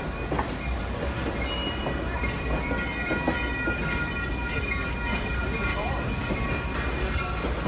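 Passenger train rolling along the track, heard from on board: a steady low rumble of the wheels and cars, with a thin, high, steady squeal from the wheels from about a second and a half in until near the end.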